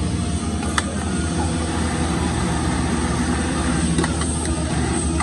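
Automatic industrial label sewing machine running steadily, stitching at high speed with a fast, even rhythm over a low motor hum.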